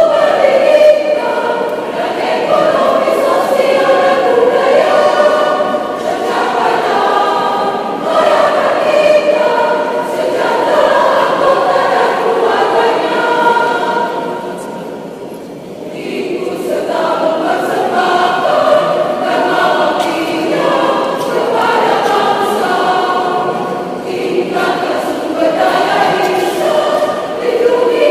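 Women's choir singing, several voices together, with a brief quieter passage about halfway through before the full sound returns.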